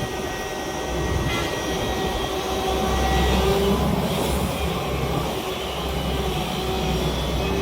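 Excavator's diesel engine running steadily under work, a low drone with a steady hum that grows a little louder about three seconds in and then eases.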